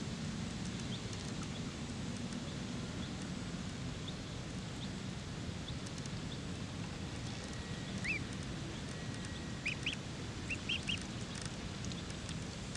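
Duckling peeping: a few faint, high, short peeps, then a cluster of louder ones from about two-thirds of the way in, over steady background hiss.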